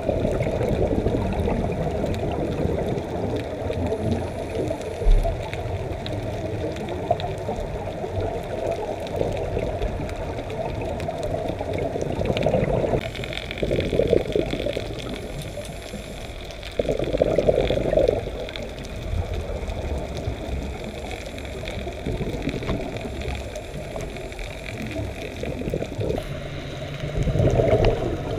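Underwater sound as a scuba diver hears it: a steady low rushing, broken by several louder surges of exhaled regulator bubbles. A single brief low knock comes about five seconds in.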